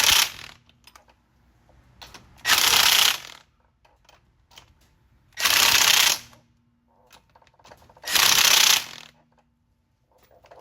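Impact wrench fitted with a torque-limiting extension running lug nuts down onto wheel studs in four short bursts, one nut after another in a star pattern, with faint clicks between them.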